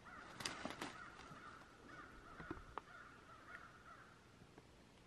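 Faint animal calls, repeated for about four seconds and then fading out, with two light clicks in the first second.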